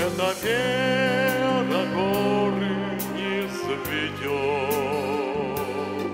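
Music: held accompaniment chords under a melody line with vibrato, an instrumental passage between sung verses of a Russian hymn-style song.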